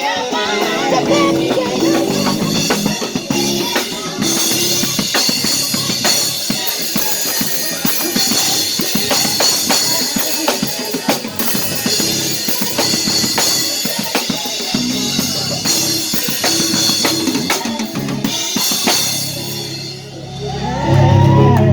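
Music with a prominent drum kit, kick and snare beating steadily under pitched instruments; it thins out near the end.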